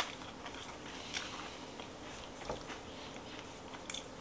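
Faint sounds of a person biting and chewing a s'more of graham crackers and melted marshmallow, with a few small clicks and soft mouth noises.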